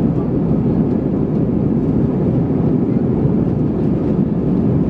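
Steady cabin noise inside an Airbus A320-232 climbing after takeoff: a low, even rumble of its IAE V2500 turbofan engines and the air rushing past the fuselage.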